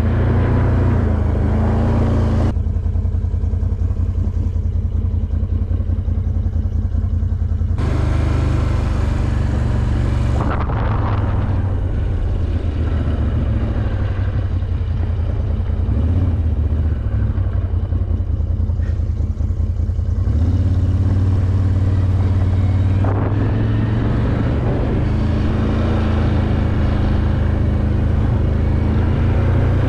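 ATV engine running steadily while riding, its note shifting up and down a few times with the throttle.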